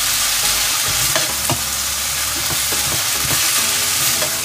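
Sliced peppers, onions and mushrooms sizzling in a hot pan as they sauté, stirred with a spatula that scrapes across the pan a few times.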